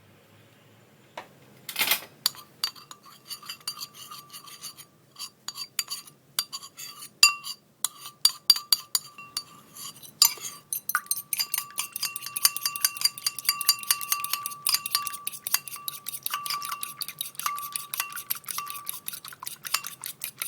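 A utensil beating the egg mixture against a ceramic bowl, which rings with each clink, after a louder knock about two seconds in. The clinks are scattered at first, then come fast and continuous for the second half.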